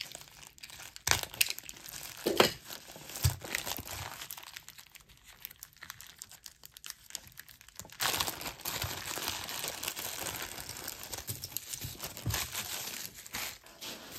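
Packaging being unwrapped by hand: scattered crinkles and a few sharp clicks, then steady crinkling and rustling for several seconds from a little past the middle.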